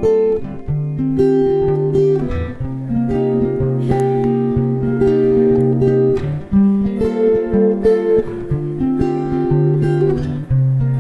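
Acoustic guitar strumming and holding chords, the instrumental intro of a folk song.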